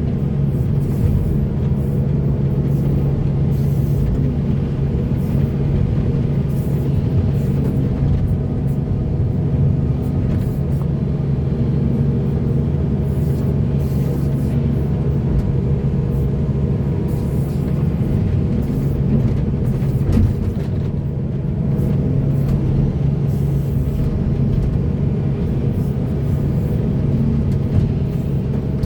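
Large diesel engine of heavy earthmoving machinery running steadily with a deep, even hum.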